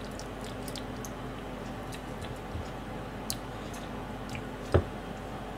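Raw sandfish (hatahata) being handled and cut with a kitchen knife on a plastic cutting board: small wet squishes and light clicks, with one louder knock about three-quarters of the way through. A steady low hum runs underneath.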